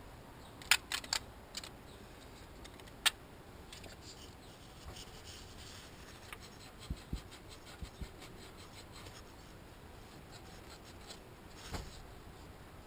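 Small clicks and taps of tools and parts being handled, a quick cluster of sharp clicks about a second in and another single click a couple of seconds later, with a few soft low thumps and a brief rustle later on.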